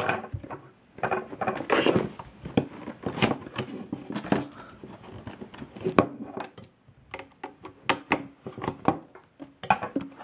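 A hard clear plastic display case and its cardboard box being handled: irregular plastic clicks, taps and rustling as the case is lifted out and turned over in the hands.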